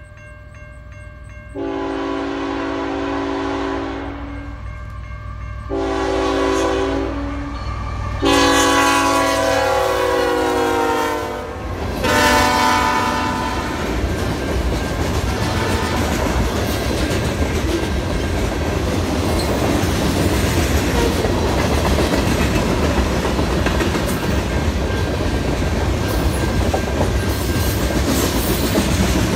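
Crossing signal bell ringing, then a Canadian National freight locomotive's multi-note air horn sounding four blasts, from about a second and a half in to about thirteen seconds in. After that the freight cars roll past with a steady rumble and clickety-clack from the wheels.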